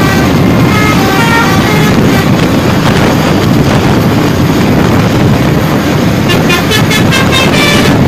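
A bus's telolet basuri horn, a set of musical air horns, plays a tune of stepped notes, then a quick run of short repeated notes from about six seconds in. Loud road and wind rumble lies under it.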